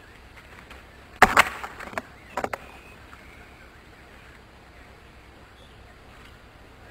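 Two horned animals butting heads: a sharp crack of horn on horn a little over a second in, a quick second knock and a short rattle after it, then a second, smaller double knock about a second later.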